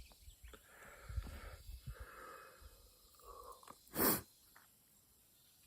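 A cyclist breathing hard, puffing in and out while pedalling uphill. About four seconds in there is one short, loud rush of noise.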